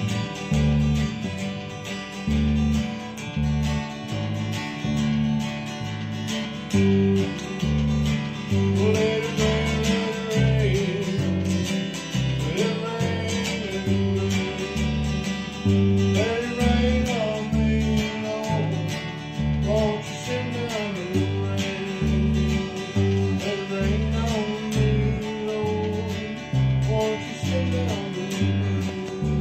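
Electric bass guitar played through a Crate combo amplifier together with a strummed acoustic guitar, the two playing a song. The bass notes are loud and change in a steady rhythm underneath the guitar.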